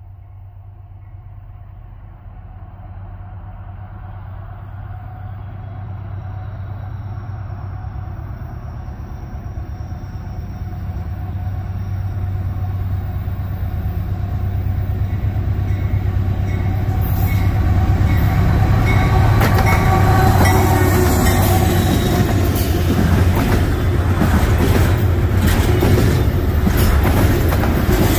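Diesel-hauled Norfolk Southern freight train approaching: a low locomotive engine drone grows steadily louder for about eighteen seconds. Then the train passes close, with loud, rapid clattering of wheels over the rails.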